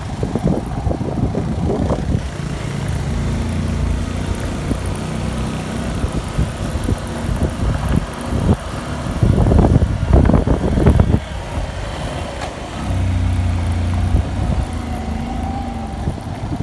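Small two-wheeler engine running while riding along a rough dirt road, with wind noise on the microphone and road bumps. A louder, rougher rumbling stretch comes about ten seconds in.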